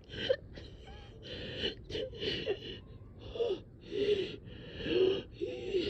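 A person breathing fast and laboured, about eight short wheezing breaths in six seconds, each with a squeaky tone: shortness of breath, the struggle to get a deep breath.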